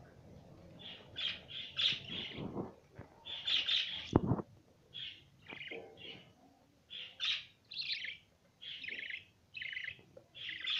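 Green budgerigars giving about a dozen short, harsh chirps in quick bursts, with a single dull knock about four seconds in.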